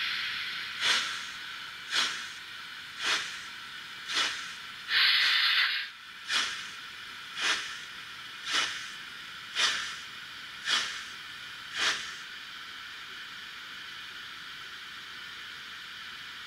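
Trix 22960 BR 96 Mallet model locomotive's sound decoder playing slow steam chuffs from its small loudspeaker, about one chuff a second. There is a longer, louder steam hiss about five seconds in. The chuffs stop about twelve seconds in, leaving a faint steady hiss.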